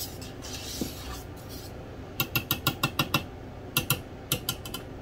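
A metal utensil clicking against a saucepan in a quick run of light taps, about seven in a second, then a few more taps near the end.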